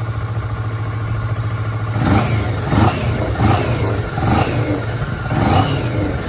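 Kawasaki Ninja 400 (2014) parallel-twin engine idling, then revved with five quick throttle blips from about two seconds in, each rising in pitch and dropping back to idle.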